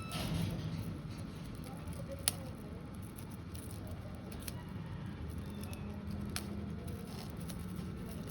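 Soft rustling of packaging and merchandise being handled, with a few sharp clicks or taps: one about two seconds in, then two more spaced roughly two seconds apart.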